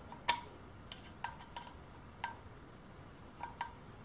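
Light metal clicks of an Allen key in the socket head of a small bolt as it is turned by hand into an oil can's plastic pump body: about seven irregular ticks, the first the loudest and a quick pair near the end.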